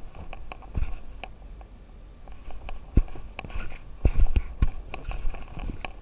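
Irregular thumps, clicks and rustling picked up by a camera on a walking cat's collar: the camera jostling and rubbing against the cat as it moves. There is a cluster of sharper knocks about four seconds in.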